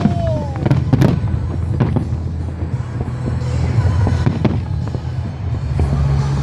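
Festive fireworks display: repeated bangs and crackling bursts of exploding shells, with a brief falling whistle at the start.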